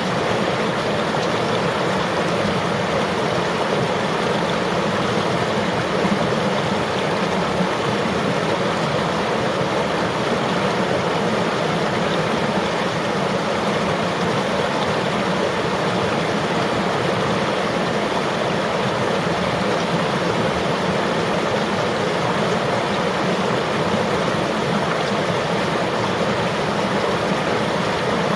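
River water flowing steadily: a continuous, even rushing of water.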